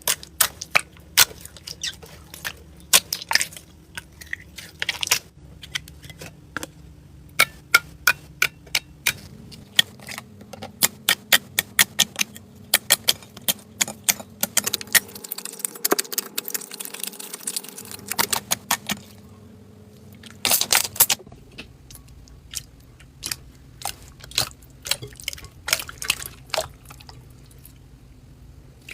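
Slime being squeezed and worked by hand, making a stream of sharp, irregular clicks and pops, sometimes in quick runs.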